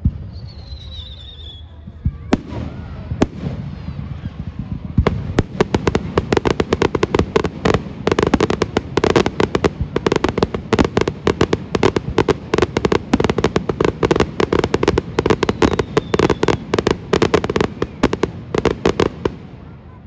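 Fireworks display: a brief high falling whistle and a few single bangs, then from about five seconds in a dense, rapid run of sharp cracks and pops that goes on for some fifteen seconds and dies away just before the end.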